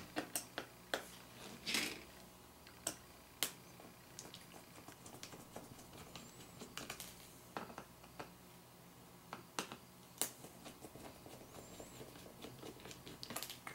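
A small screwdriver working on the screws of a Palm III PDA's back case: scattered light clicks and scrapes, with a few louder taps.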